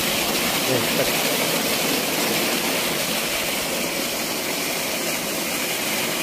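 Steady rushing of water gushing from a solar-powered pump's outlet pipe into a concrete tank.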